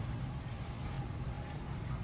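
A steady low hum of background noise, with no distinct knocks or clinks.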